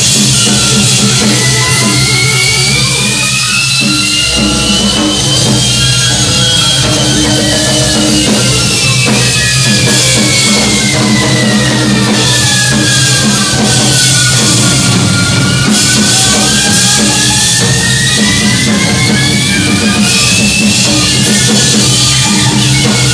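Live noise music: a drum kit being played under a dense electronic noise wash, with a high tone that glides slowly up, then down, then up again.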